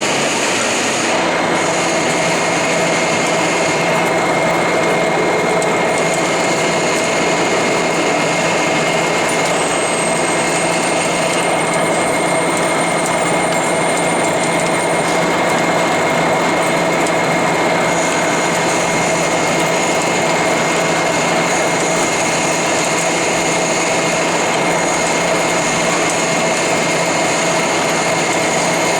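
Lathe running steadily, a continuous mechanical hum with a fixed high whine from the motor and gearing. A thin, very high whistle joins in for a few seconds about ten seconds in.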